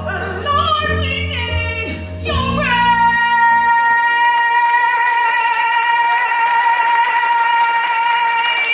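A woman singing a gospel song into a microphone over backing music: a few quick vocal runs, then one long held final note of about six seconds that stops near the end.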